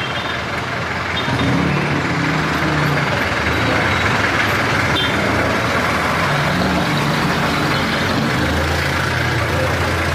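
Street traffic: vehicle engines idling and running with a steady low hum over road noise, a little louder from about a second and a half in.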